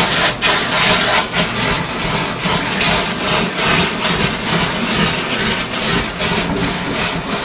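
Wet vacuum sucking coolant and sludge from a CNC machine sump through a flexible hose. It makes a steady rushing hiss broken by irregular surges as the nozzle draws in liquid and air.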